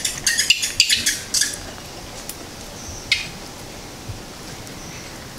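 A quick run of sharp, close clicks and crackles, like hard small objects being handled, followed by a single click about three seconds in.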